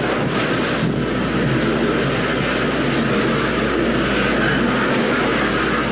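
Loaded freight wagons of a long diesel-hauled train rolling steadily past close by, their wheels clattering on the rails.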